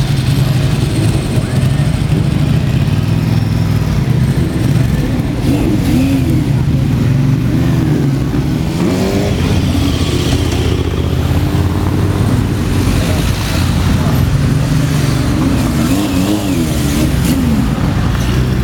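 Motorcycle engines running at low speed in a slow procession, with a steady low drone. The engines are revved up and down twice, about six seconds in and again near the end.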